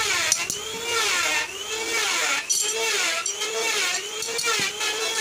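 Hand metalwork on steel flat bar: a squeal that rises and falls in pitch about every 0.7 s, with a few sharp hammer knocks on the steel.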